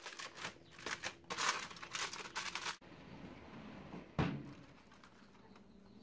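Aluminium foil crinkling and rustling as it is folded and pressed over a baking tray, for nearly three seconds. About four seconds in comes a single clunk as the oven door is shut.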